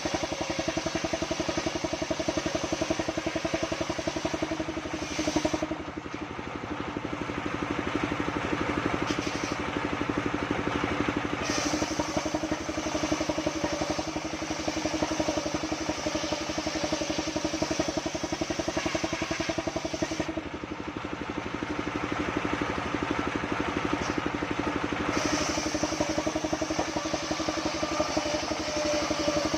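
Sengon wood band sawmill (srekel selendang) running as a steady machine drone with a fast, even pulse. A hiss rides on top and dulls twice for a few seconds, about six seconds in and again around twenty seconds.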